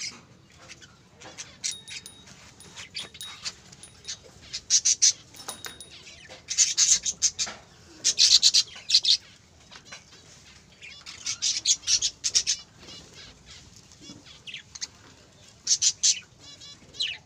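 Budgerigars chattering and chirping, in loud flurries of rapid high chirps every couple of seconds with softer chirps in between.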